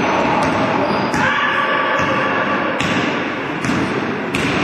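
Basketball thumping on a gym floor, a few scattered strikes, over the steady noise of play in the hall.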